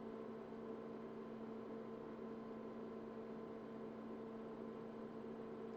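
Quiet, steady electrical hum from running computer equipment: a low drone with a few fixed tones, unchanging throughout.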